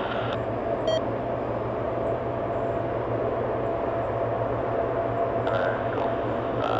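Lockheed C-130H Hercules running steadily on the ground: a continuous turbine drone with a steady whine over a low hum.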